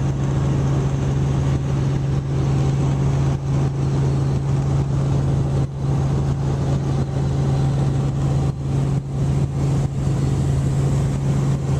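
Helicopter in level flight heard from inside the cabin: a steady rotor and engine noise with a strong low hum that holds one pitch throughout.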